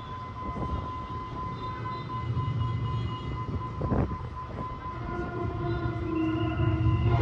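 Diesel train running with a steady low engine rumble and a single knock about four seconds in. From about five seconds its horn begins to sound and grows louder toward the end.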